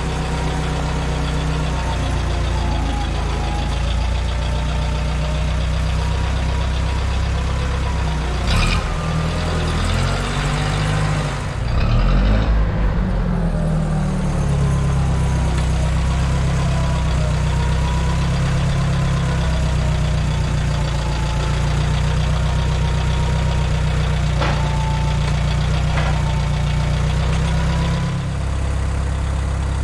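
Engine running steadily, with a louder surge about twelve seconds in and a few sharp knocks.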